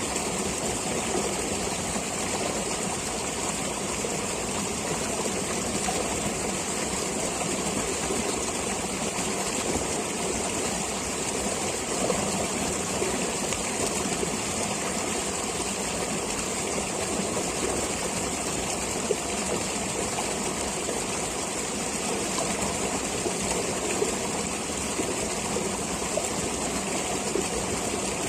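Water flowing in a forest stream, a steady rushing and trickling with small splashes flickering through it.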